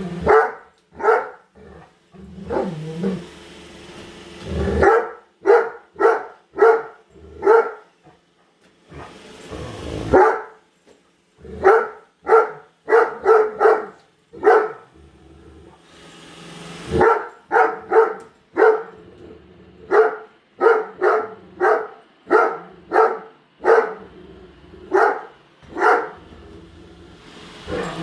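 A Great Dane barking over and over in loud, deep barks, about one to two a second with short pauses, alarm barking at a running Roomba robot vacuum.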